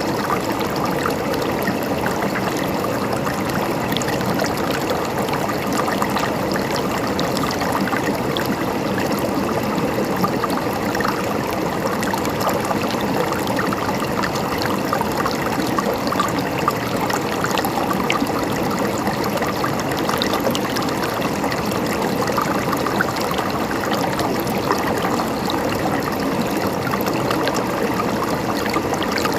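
Running water: a stream trickling and gurgling steadily, with small splashes scattered throughout.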